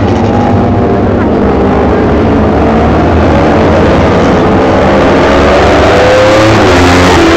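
A pack of Kawasaki Ninja 250 four-stroke road-race motorcycles running hard through a corner, several engines revving at once, their pitches rising and falling as riders shift and accelerate, getting a little louder toward the end.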